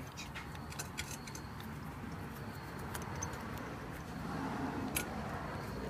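1981 Kawasaki KZ750 LTD motorcycle engine running with a steady, rough, throaty note that the owner hears coming from the top of the engine, where oil is leaking. Scattered light clicks and taps of handling sound over it.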